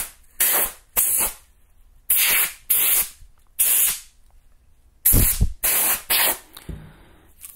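Canned air duster spraying through its extension straw onto a rifle scope lens in a series of short hissing blasts, about eight or nine of them, mostly in quick groups of two or three.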